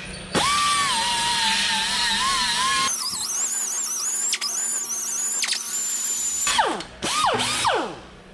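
Right-angle air die grinder with an abrasive disc, whining as it grinds rust off a rear wheel hub face to clean it for a new brake rotor. The pitch jumps much higher about three seconds in and dips briefly now and then. Near the end come a few short bursts, each falling in pitch as the tool spins down.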